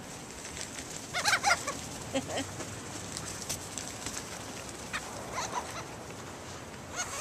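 Gulls calling: a few short squawks about a second in, again around two seconds in, and once more about five seconds in.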